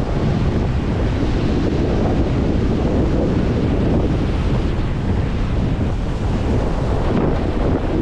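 Ocean surf breaking in the shallows and foam washing up over the sand, with strong wind buffeting the microphone in a steady low rumble.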